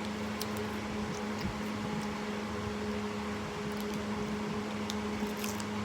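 Steady machine-like room hum with a constant low tone, and a few faint ticks.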